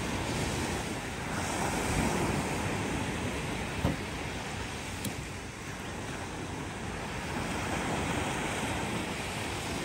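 Surf breaking and washing on a sandy beach, a steady rush of waves, with wind on the microphone. A single short click about four seconds in.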